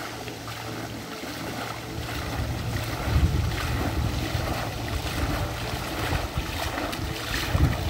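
Footsteps of a person in waders wading through a shallow, fast river, the water splashing around the boots over the rush of the current. A low rumble grows louder about two seconds in.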